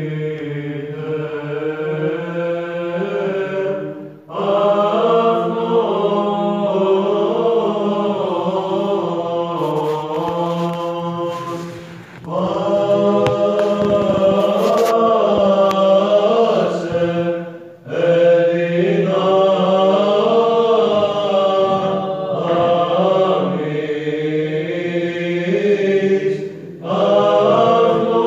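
Male voices chanting Greek Orthodox Byzantine psalmody: a melody moving over a steadily held low drone (the ison), sung in long phrases with short breaks for breath.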